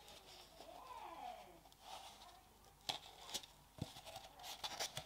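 Plastic snap-on lid being prised off a paper insect cup: faint creaking, then a few sharp clicks.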